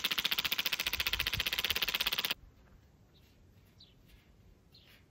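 Impact wrench hammering rapidly as it drives a screw-in ground anchor into the dirt, stopping abruptly about two seconds in. A few faint bird chirps follow.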